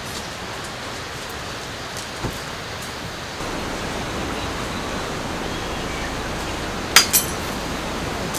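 Steady rushing of a creek, an even hiss, slightly louder after about three and a half seconds. About seven seconds in come two sharp clicks in quick succession.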